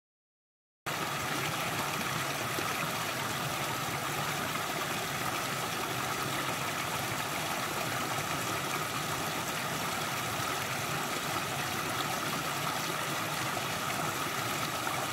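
Steady rushing noise, like running water or static, starting abruptly about a second in after a moment of dead silence.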